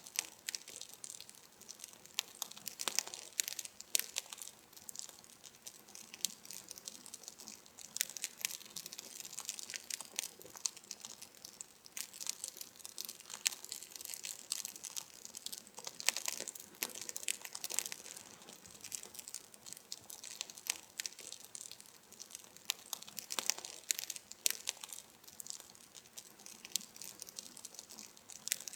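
Wood campfire crackling: burning wood snapping and popping in irregular sharp clicks over a steady hiss of flame.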